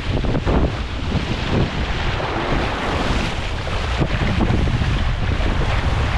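Wind buffeting the microphone in irregular gusts over a steady rush of surf.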